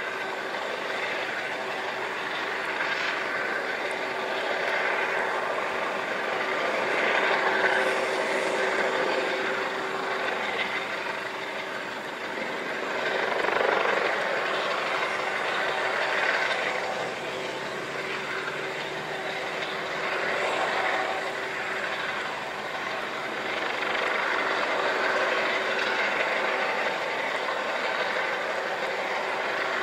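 Coast Guard HH-65 Dolphin helicopter hovering low over the water: a steady rotor and turbine noise with a held tone, swelling and easing slowly.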